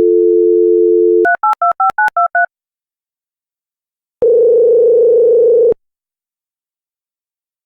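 Telephone dial tone, then about eight quick touch-tone keypad beeps as a number is dialled, then after a pause one ringing tone of about a second and a half as the call rings through.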